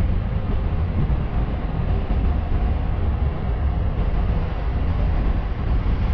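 A car driving: steady road and wind noise with a low rumble.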